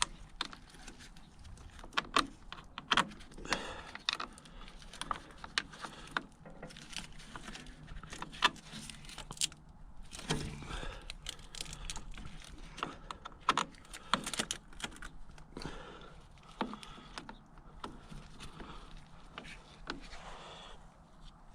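Metal hand tools clinking, clicking and rattling against battery terminals and cable ends, in irregular strokes, as the corroded terminals are cleaned up.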